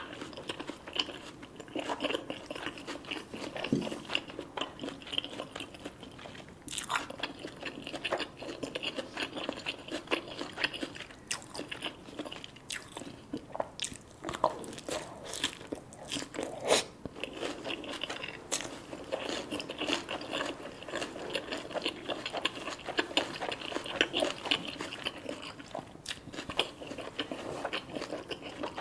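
Close-miked eating: crunchy deep-fried food being bitten and chewed, with many sharp, irregular crackles throughout.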